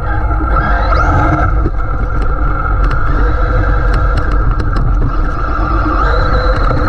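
Traxxas Maxx RC monster truck driving over rough ground: the steady whine of its brushless electric motor over a heavy rumble, with scattered clicks and knocks from the tyres and chassis. The whine rises in pitch near the end as the truck speeds up.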